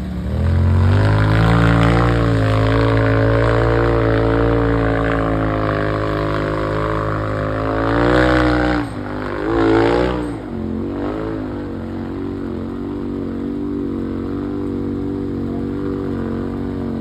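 Off-road Jeep's engine revving hard under load as it claws up a rocky hill, held at high revs for several seconds. The revs drop near the middle, rise in one short burst, then settle to a lower, steady run.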